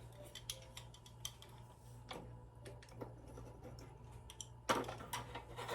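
Light, scattered clicks and taps from handling kitchen items while loading a bread machine, with a denser run of clicks about five seconds in, over a faint steady hum.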